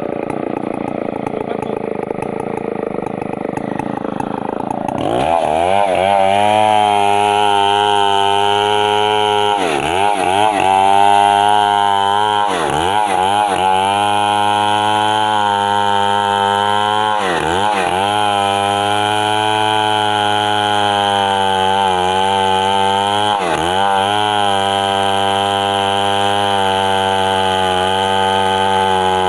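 Stihl 070 two-stroke chainsaw running, lower at first, then about five seconds in opening up to a loud, steady high-revving note held to the end. Its pitch sags briefly about four times, the engine loading up as the chain bites into the wood.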